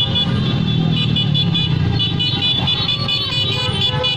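Motorcycles, motorcycle tricycles and cars of a motorcade passing close by, a steady engine and traffic rumble with steady high tones over it.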